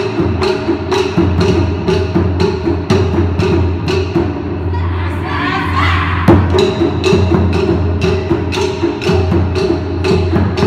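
Taiko drum ensemble playing a steady beat: crisp, sharp strikes about three times a second over deep strokes from the large barrel drums, in a concrete parking garage. About five seconds in the sharp strikes briefly thin out, then a heavy hit lands and the beat picks up again.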